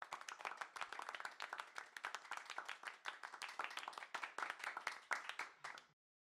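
Applause: many hands clapping in a dense patter, starting abruptly and cutting off sharply about six seconds in.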